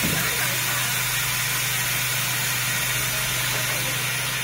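Quilt and pillow compression packing machine running: a steady hiss over a constant low electric hum.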